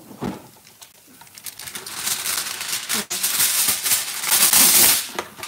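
Heavy-duty aluminum foil being pulled from its box and crinkled: a dense crackling that builds from about a second and a half in and is loudest near the end. A short knock comes just at the start.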